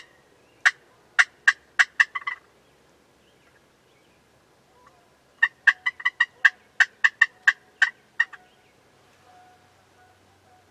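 Turkey yelping: two series of short, raspy notes, about four a second. The first series is brief and the second, a few seconds later, is longer.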